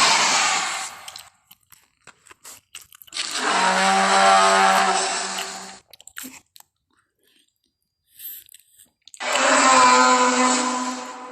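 Dinosaur creature sound effects made for a Pachyrhinosaurus: a breathy, hissing roar dies away in the first second, then two long, pitched bellowing calls follow a few seconds apart, the second a little higher than the first, with faint clicks in the gaps.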